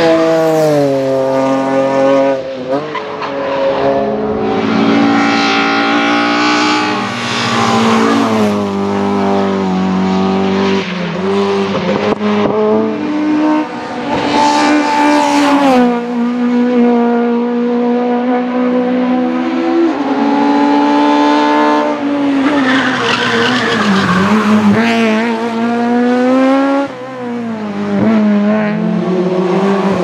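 Hillclimb race cars accelerating hard uphill one after another, among them a BMW E34 5 Series saloon and a widened VW Golf Mk2. The engines rev high and drop in pitch at each upshift, repeatedly through the passage.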